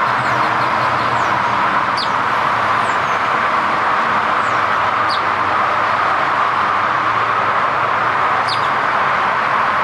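A few short, high bird chirps, each falling quickly in pitch, spaced a few seconds apart, over a loud, steady rushing background noise.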